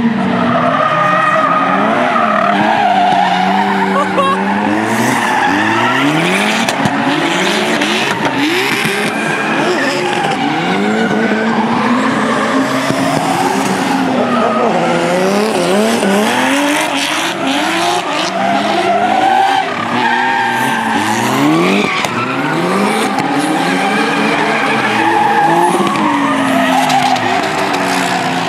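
Drift cars' engines revving hard, their pitch sweeping up and down over and over as the throttle is worked through a slide, with tyre squeal. The notes of more than one engine overlap at times, and a few sharp pops cut through.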